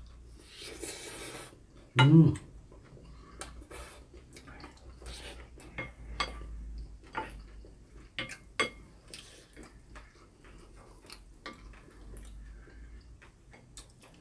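Spoons and chopsticks clinking and scraping against ceramic bowls of fried rice while eating, with scattered short clicks. A brief loud burst of voice about two seconds in.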